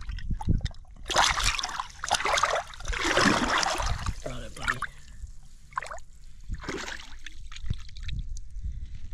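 Water splashing and sloshing as a bass is held at the surface beside a boat hull and released, in a few bursts over the first half, then a couple of smaller splashes as it swims off.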